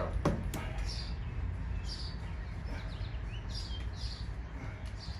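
A bird chirping over and over, short high chirps about once a second, over a steady low rumble. Two sharp clicks right at the start.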